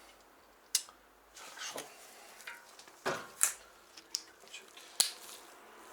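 A handful of irregular, sharp metallic clinks and knocks as small metal tools and parts are handled and set down on a workbench.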